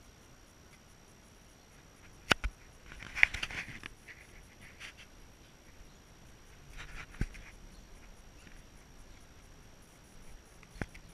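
Handling noise on a handheld camera: a few sharp knocks, the loudest about three seconds in, with short scuffing rustles as it is turned and moved, over a faint steady high tone.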